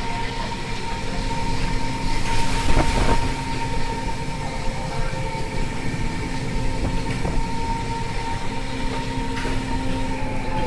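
Steady mechanical drone of a fishing boat's engine and deck machinery, holding a couple of even tones over a low rumble, with a few brief knocks between two and three seconds in.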